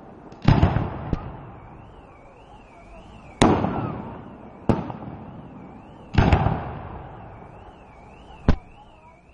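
Fireworks display: aerial shells bursting with sharp bangs, about six in all, each trailing off in a long rolling echo.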